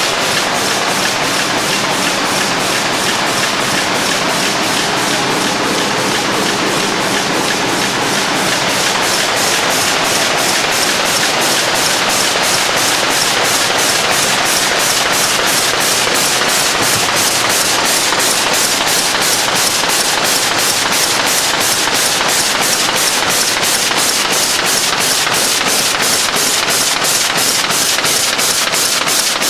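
Signature folder-gluer running six-bottle carrier cartons through its belts: a loud, steady machine din with a fast, even clicking that grows plainer about halfway through.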